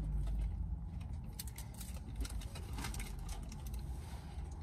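A steady low hum inside a car, with scattered small clicks and rustles from people moving and handling things.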